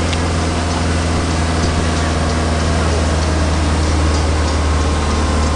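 Speedboat engine running steadily at speed while towing an inflatable tube, a low drone under the rush of the wake and wind.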